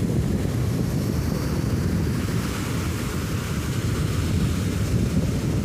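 Wind buffeting the microphone in a steady low rumble, over the continuous wash of ocean surf breaking and running up a sandy beach.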